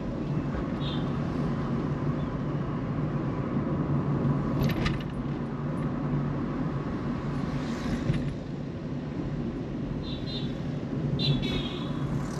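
Car driving, a steady rumble of engine and tyre noise, with a few brief high-pitched sounds about a second in, around five seconds in, and again near the end.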